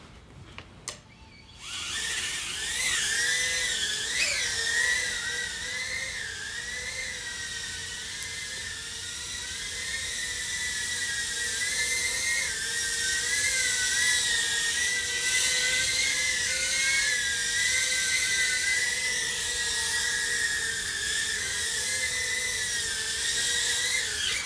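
A few faint clicks, then about two seconds in a tiny-whoop quadcopter's EX1102 brushless motors and 40 mm four-blade props spin up into a steady high-pitched whine. The whine wavers up and down in pitch through the flight.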